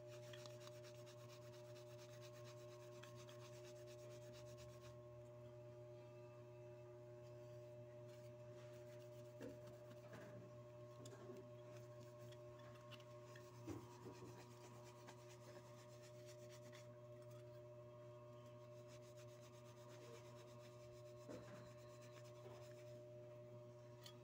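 Faint rubbing of a polishing cloth with metal polish over a metal security badge and belt buckle, with a few light knocks. A steady low hum runs underneath.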